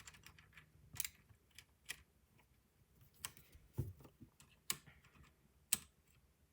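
Keycaps being worked off and onto the switches of a Ducky mechanical keyboard: a series of short, sharp plastic clicks spaced about a second apart.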